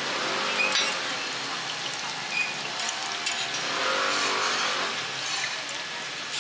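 Scallion pancakes sizzling in oil on a steel flat-top griddle, a steady hiss, with sharp clicks of a metal spatula and tongs against the griddle.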